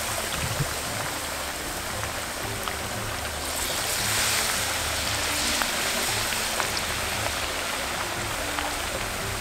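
Battered chicken pieces deep-frying in hot oil in a cast-iron skillet: a steady sizzle with small pops and crackles. It swells louder about four seconds in as another battered piece is lowered into the oil.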